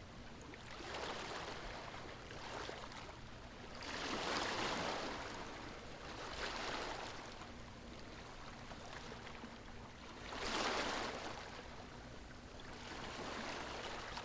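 Ocean waves washing in, a rushing surf sound that swells and fades every few seconds, with the biggest washes about four and ten and a half seconds in.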